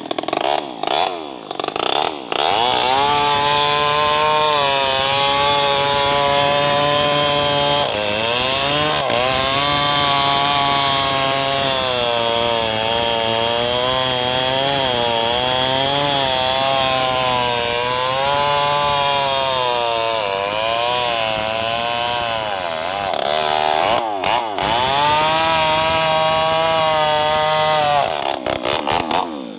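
Tuned-up New West 588 two-stroke chainsaw, run without a muffler, cutting through an old teak log at full throttle. It revs briefly a few times near the start, then runs under load with the engine pitch sagging and recovering as the chain bites, easing off briefly twice along the way.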